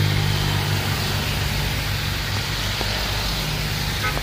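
Convoy cars driving past on a wet road: an engine's low hum fades in the first half second, giving way to a steady hiss of tyres on wet tarmac. A few short horn beeps come right at the end.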